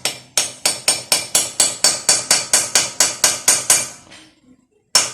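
A hammer striking metal in a fast, even run of sharp ringing taps, about five a second. The taps stop a little under four seconds in and start again near the end. This fits driving a 19 mm socket onto a swollen, capped lug nut.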